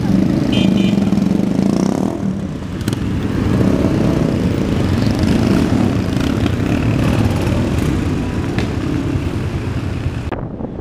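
A group of motorcycles riding past in a pack, several engines running together with a dense, continuous low rumble that swells and eases as they go by.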